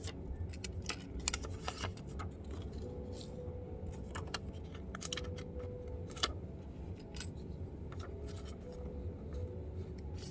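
Fingers handling a small wrapper: irregular light clicks and crinkles over a steady low hum.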